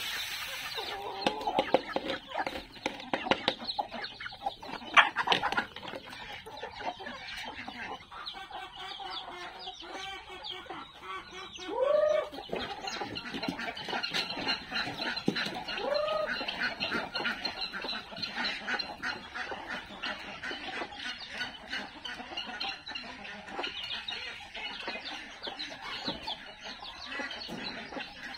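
A flock of backyard chickens clucking, with a dense, continuous patter of short, high calls that fits the chicks seen peeping in the pen. A sharp knock about five seconds in, and two louder short calls that rise and then fall, about halfway through.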